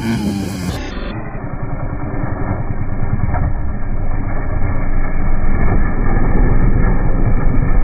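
Dirt bike engine running hard, growing steadily louder as the bike approaches and passes close by.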